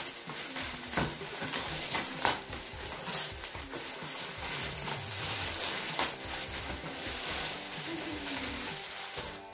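Foil gift-wrapping paper being torn and crumpled by two people at once: a steady crinkling rustle with a few louder rips.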